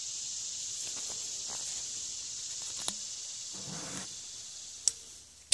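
Steady high-pitched buzz of insects, with a few faint light clicks as a metal screw cap is twisted off an aluminium bottle and set down.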